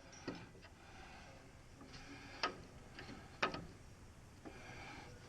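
A few light metallic clicks and taps from hand tools and bolts being handled while fitting a transmission, spaced irregularly, the sharpest about two and a half and three and a half seconds in, with faint handling noise between.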